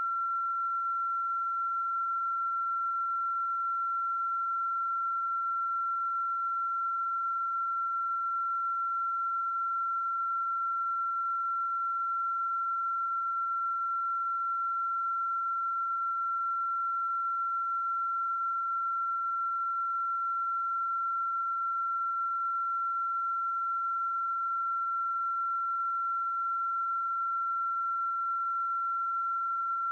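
A steady, high-pitched pure electronic tone that holds one pitch without a break or change.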